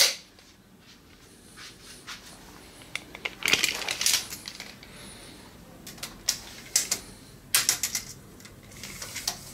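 Steel tape measure being handled against a wooden speaker cabinet: its metal blade clicks and rattles in several short clusters.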